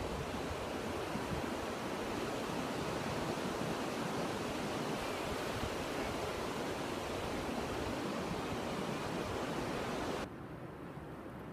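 Ocean surf washing onto a sandy beach, a steady rushing wash of breaking waves. About ten seconds in it drops suddenly to a quieter, duller hiss.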